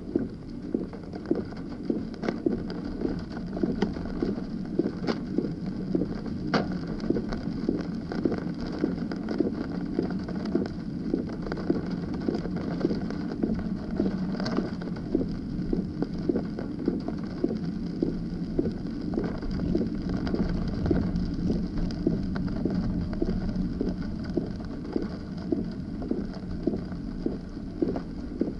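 A vehicle travelling along a wet, narrow road in heavy rain: a steady rumble of tyres and motion over the soaked surface, with frequent short taps and a few sharper clicks.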